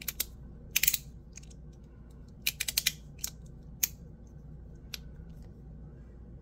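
Ti Rhythm titanium fidget slider being worked back and forth, giving sharp clicks in small quick clusters: a run of several near the middle, then a few single clicks.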